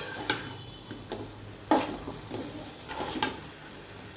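A flat spatula stirring lemon pieces and chillies frying in oil in a metal kadhai: a few sharp scrapes and knocks against the pan over a faint sizzle.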